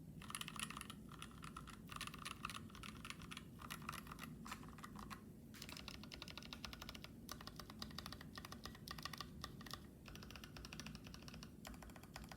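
Steady, fast typing on a KBD67 MKii mechanical keyboard with a brass plate, lubed Gazzew Blue Ice frankenswitches with UHMWPE stems, and PBT keycaps: a dense run of key strokes in bursts, broken by brief pauses every second or two.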